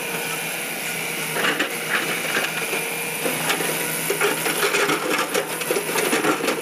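Hyundai crawler excavator digging broken rock and soil: stones and gravel clatter and crunch against the bucket over the steady running of the engine and hydraulics.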